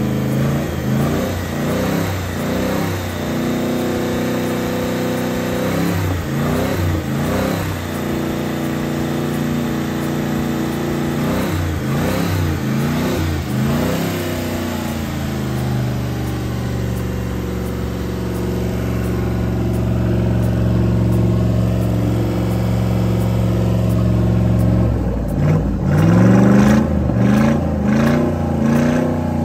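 Freshly overhauled Chrysler 318 V8 marine engine running, blipped up and back down several times. It settles to a steady idle about halfway through, then is revved repeatedly again near the end.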